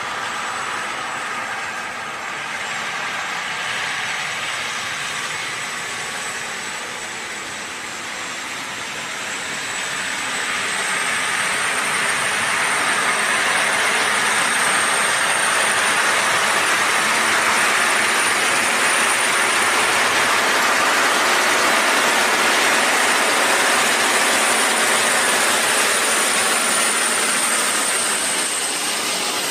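John Deere 9630 four-wheel-drive tractor's diesel engine and running gear working under load while it pulls a scraper pan through dirt. The sound grows louder from about ten seconds in as the tractor comes close, with a thin high whine over the top.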